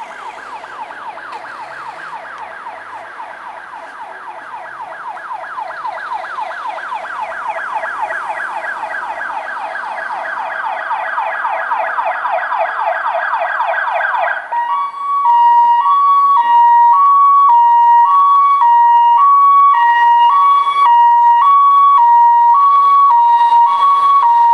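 Fire engine sirens in a convoy: a fast, repeating rising yelp that grows steadily louder as the vehicles approach. About 15 seconds in, it gives way to a loud two-tone high-low siren, switching pitch roughly every half second.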